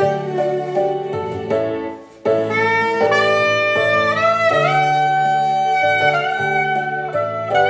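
Chempo soprano saxophone playing a melody of held notes, with a brief break about two seconds in before the playing picks up again.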